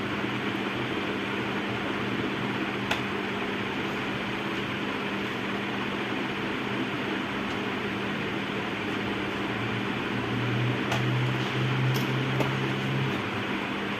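Steady whir of a room fan with a low hum that grows louder for a few seconds about ten seconds in, and a few faint ticks.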